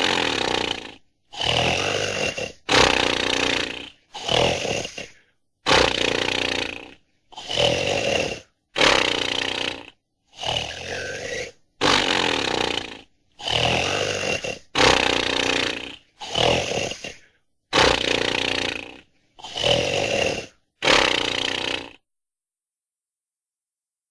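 Warner Bros. cartoon snoring sound effect: a loud, rasping snore repeated about fifteen times, roughly one every second and a half, each snore cut off into dead silence. The last two seconds are silent.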